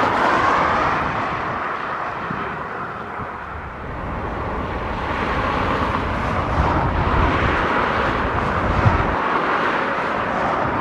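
Jet airliner engines sounding steadily as an aircraft moves on or over the runway, a continuous rushing noise that dips and then swells again.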